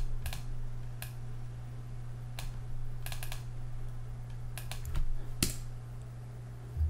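Computer keyboard keystrokes and mouse clicks, scattered and irregular, with the sharpest click about five and a half seconds in, over a steady low hum.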